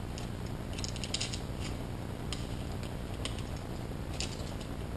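Scissors snipping along the edge of a tinted headlight-cover piece: a quick run of snips about a second in, then single snips spaced out, over a low steady hum.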